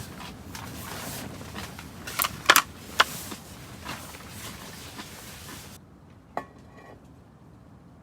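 A few sharp clicks and knocks, like hard objects being handled, over a steady hiss. The hiss drops away abruptly near six seconds in, followed by one more brief ringing clink.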